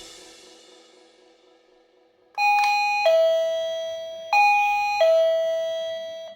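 Wireless doorbell chime playing a two-note ding-dong, a higher note then a lower one, twice over and cut off suddenly. It follows the fading tail of drum-beat music in the first two seconds.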